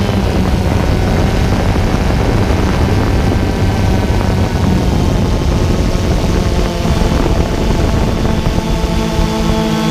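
Multirotor drone's motors and propellers running steadily.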